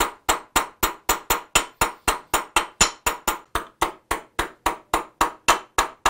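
A small hammer tapping steadily on the steel rivet of a hand plane frog's lateral adjustment lever, about four sharp metallic taps a second, peening the rivet to hold the lever on.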